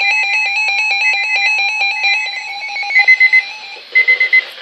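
Electronic emergency-alert tones opening a weather warning broadcast: a rapidly pulsing multi-pitch alarm tone that fades out over the last second or so, with two short bursts of quick high beeps about a second apart near the end.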